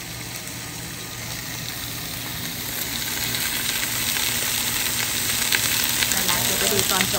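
Chunks of beef tenderloin (filet mignon) sizzling as they sear in a large pot over a propane burner, the sizzle growing louder over the first few seconds.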